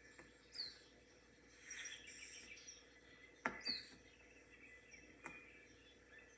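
Sparse film Foley: a few soft clicks and a brief rustle, with short high chirping squeaks, over a faint steady hum.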